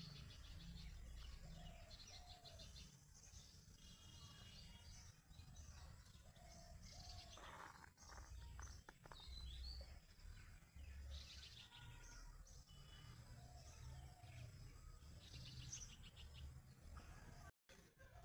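Faint birdsong: several small birds chirping and trilling in short repeated phrases, over a low steady rumble. The sound cuts out for a moment near the end.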